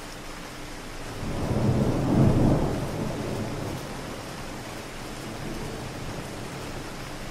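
Steady rain with a rumble of distant thunder that swells about a second in and dies away over the next couple of seconds.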